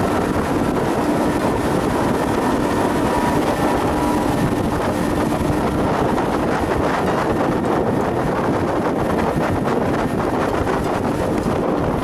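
Pontoon boat's outboard motor running steadily at cruising speed, with wind buffeting the microphone.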